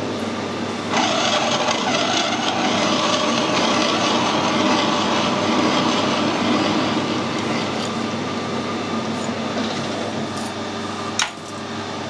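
A workshop machine's electric motor running steadily with a low hum. A louder hissing noise joins about a second in and cuts off near the end.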